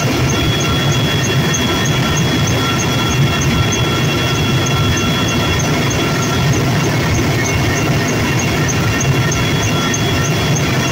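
Helicopter cabin noise in steady flight: a loud, unchanging rumble of engines and rotor with several steady high-pitched whines over it, and a faint high tick repeating a little more than twice a second.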